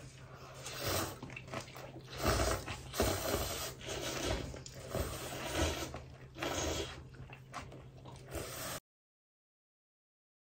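A person eating: irregular chewing and scraping noises over a low steady hum, cutting off to dead silence about nine seconds in.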